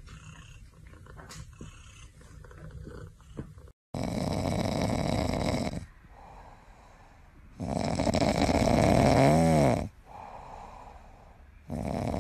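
Snoring from a sleeping cat: long, loud snores about four seconds apart, three in all, starting about four seconds in. Before them come faint small clicks and rustles.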